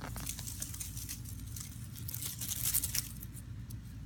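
Garlic plants being pulled by hand from dry soil: roots tearing and dry earth crunching and crackling. The crackles are densest between two and three seconds in.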